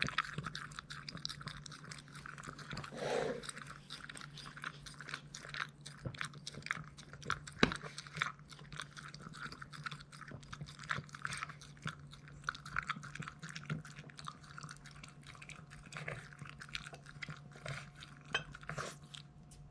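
Boston terrier lapping water from a bowl: a steady, rapid run of wet tongue laps and slurps with no break.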